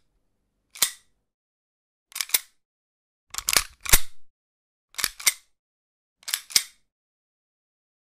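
A series of pistol cocking sounds: five separate actions, each a quick group of sharp metallic clicks, spaced about a second or more apart.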